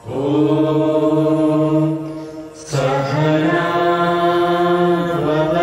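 A group of men's and women's voices chanting a prayer in unison on long, steady held notes: one long phrase, a short break for breath about two and a half seconds in, then a second long phrase.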